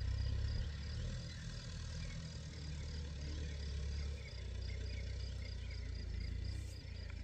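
Massey Ferguson 290 tractor's diesel engine running with a low, steady rumble, shifting slightly about four seconds in, while a cricket chirps in quick regular pulses above it.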